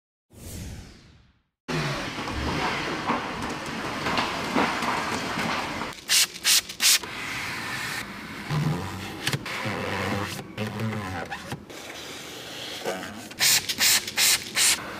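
A short falling whoosh, then steady scrubbing and rubbing of a cleaning pad on a car's leather armrest and door-panel trim, broken by two clusters of short, sharp hissing bursts, about six and thirteen seconds in.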